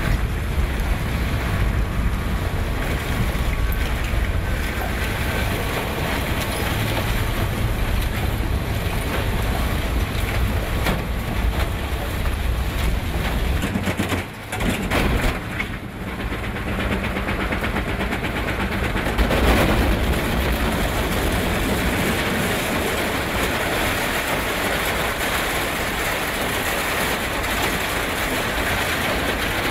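Industrial waste shredder running under load, its rotors tearing and crushing a caged plastic IBC tote and mixed plastic rubbish: continuous heavy grinding and crunching, with a brief drop in loudness about halfway through.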